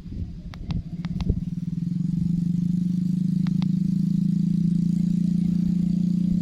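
A small engine, likely a motorcycle, running steadily, its hum building over the first two seconds and then holding even. A few sharp clicks come in the first second and a half, and two more about halfway through.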